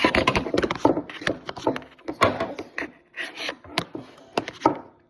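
Hands handling a slime container and slime, giving irregular rubbing and crackling noises that are dense at first and then come in scattered bursts.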